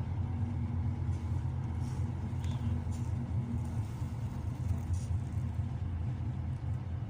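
Steady low rumble of a vehicle in motion, heard from inside the cab, with no marked change.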